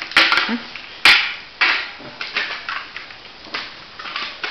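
Irregular sharp knocks and scuffing of dogs scuffling and playing on a hard floor, the loudest knock about a second in.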